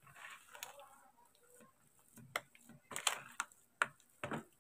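Sticky mashed fermented cassava dough being stirred by hand in a plastic bowl: faint soft squelches in the first second, then a string of light, irregular clicks and taps.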